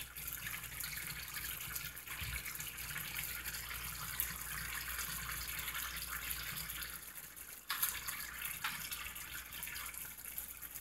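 Coconut-milk sauce with chicken simmering in a frying pan: a steady hiss of fine bubbling and crackling. It jumps back up suddenly about three-quarters of the way through.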